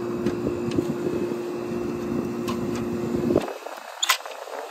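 Gibson Air Sweep window air conditioner running and cooling, a steady hum with a held tone. The low hum drops out suddenly about three and a half seconds in, and a sharp click follows shortly after.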